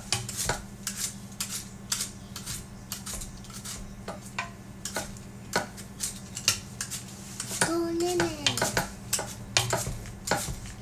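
A Granny Smith apple being peeled by hand: irregular small clicks and scrapes of the blade cutting the skin, with a steady low hum underneath.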